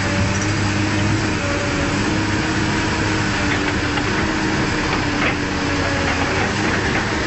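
Diesel engine of a Komatsu hydraulic excavator running at a steady pitch while its grapple swings a log onto a truck load, with a few light knocks.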